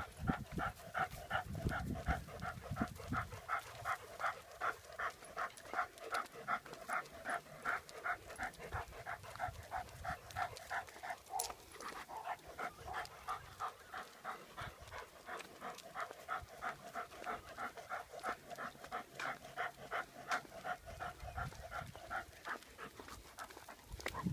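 A dog panting hard and steadily, about three pants a second, as it trots on a walk.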